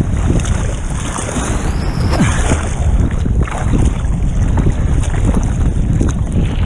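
Choppy ocean surf sloshing around the microphone, with crosswind buffeting it.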